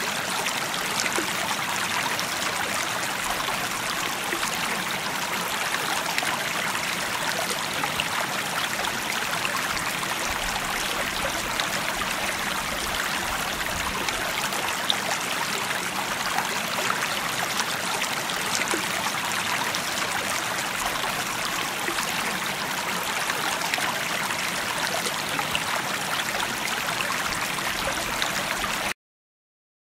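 Babbling brook: the water of a small stream flowing steadily, cutting off suddenly near the end.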